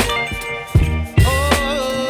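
Background music: a pop song with a sung melody over a steady bass line and drum beats.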